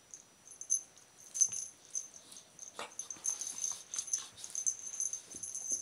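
A Rottweiler play-wrestling with a cat: scuffling, rustling and the dog's mouth and breath noises in quick, uneven bursts, starting about half a second in.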